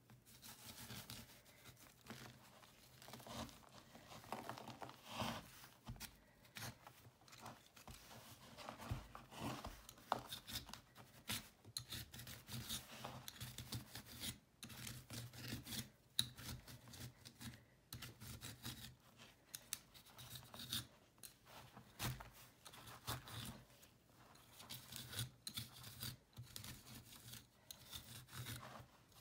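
Metal peeler shaving a dried cake of cleaning paste: repeated, irregular dry scraping strokes as chalky flakes crumble off the block.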